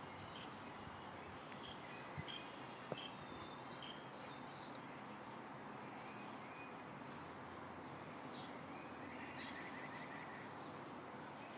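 Birds chirping outdoors: a run of five short, high chirps about a second apart, with softer calls and a brief trill near the end, over a steady low outdoor hiss.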